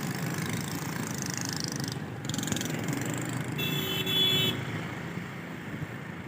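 Busy street traffic: a steady rumble of passing motor vehicles and motorcycles. A short, high, steady tone lasting about a second sounds a little past the middle.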